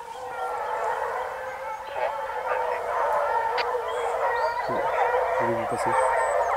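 A pack of hare-hunting scent hounds giving tongue in chorus, many voices overlapping without a break: the pack in full cry on a hare's scent.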